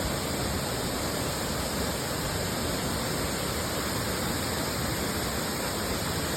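Waterfall plunging into its pool: a steady, even roar of falling water.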